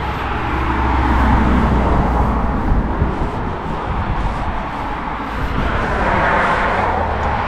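Road traffic passing close by: the tyre and engine noise of vehicles swells about a second in and again near the end, over a steady low rumble.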